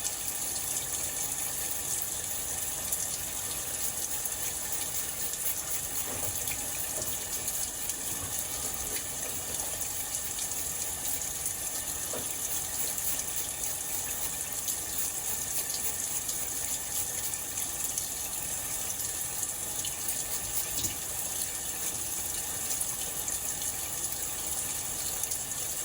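Sink faucet running steadily into a sink, an even hiss of water, with a few faint small clicks.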